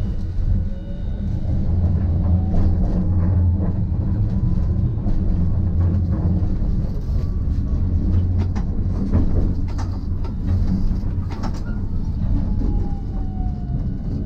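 Hiroshima Electric Railway type 1000 low-floor tram running on street track, heard from inside the car: a steady low rumble with scattered clacks from the wheels on the rails. A faint electric motor whine rises as the tram picks up speed and falls near the end as it slows.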